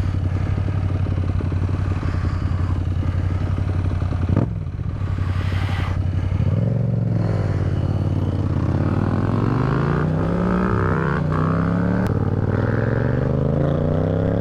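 Motorcycle engine idling steadily, then after a short break about four seconds in, revving and accelerating, its pitch climbing and dropping back several times as it goes up through the gears.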